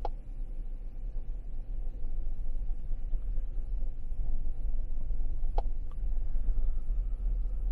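2006 GMC truck's gasoline V8 idling with the spark cut to cylinder 8 by a scan tool's cylinder balance test, so it runs rough: a low, uneven rumble.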